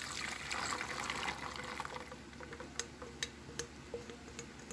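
Liquid kutsinta batter poured through a sieve into a bowl, a pouring trickle that tapers off after about two seconds; this is the batter being strained a second time. A few light clicks follow near the end.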